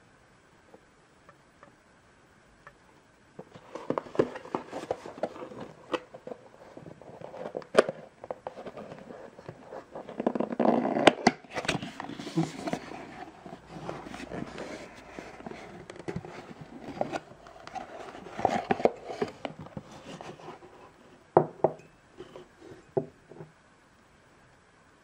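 Hands opening a cardboard gift box and sliding a ceramic mug out of it: cardboard flaps rustling and scraping, with many sharp taps and clicks. It starts a few seconds in and stops near the end.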